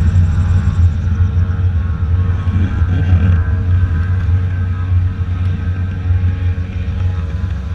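Airboat underway, its engine and propeller running steadily with a loud, deep drone.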